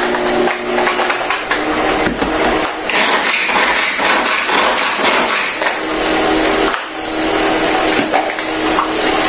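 Pull-cord manual food chopper worked in quick repeated pulls, its blades spinning and clattering against onion pieces inside the plastic bowl: a dense, continuous rattle of knocks.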